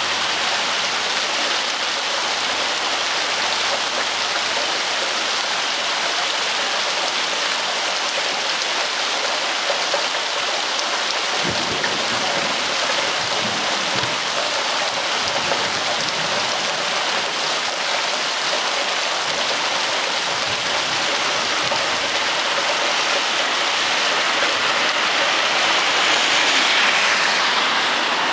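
Steady rain falling, an even hiss that grows briefly louder near the end.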